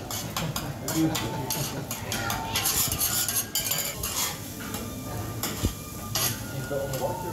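Metal spatulas clacking and scraping on a steel flat-top griddle as fried rice and vegetables are stirred and chopped, in quick irregular strokes over the sizzle of food frying.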